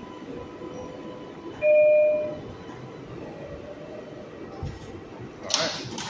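R142A subway train running, with a steady rumble and faint whine, and a short, loud single-note horn toot about two seconds in. A brief sharp hiss comes near the end.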